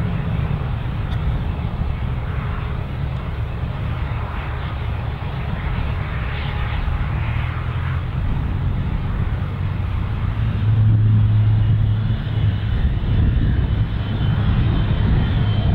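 Fixed-wing aircraft engine running, a steady low rumble that grows louder about eleven seconds in, when a faint high whine joins it.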